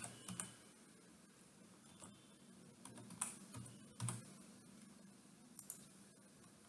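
Faint computer keyboard typing: a few scattered keystrokes entering a variable name.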